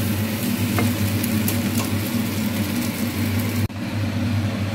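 Oil sizzling in a non-stick frying pan over a steady low hum, with a few light spatula clicks in the first two seconds. The sound breaks off sharply for an instant about three and a half seconds in, then the sizzle and hum carry on.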